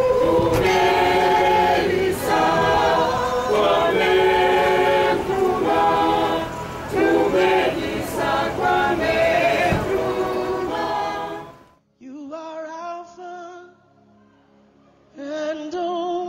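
A group singing together unaccompanied, loud and full-voiced. About twelve seconds in it cuts off abruptly. A quieter, thinner-sounding recording of singing follows, dropping low briefly before coming back.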